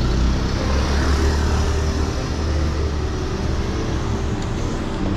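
Motor vehicle running: a steady low rumble of engine and road noise, heaviest for the first few seconds.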